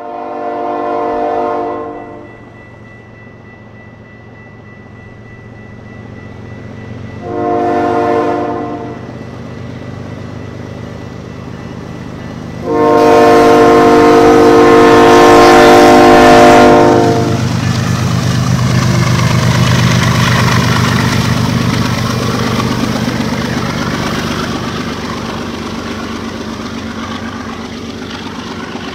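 Diesel freight locomotive's air horn sounding three blasts as the train approaches, the third the longest and loudest; then the locomotive's engine and the train's wheels rumble past, swelling and slowly fading.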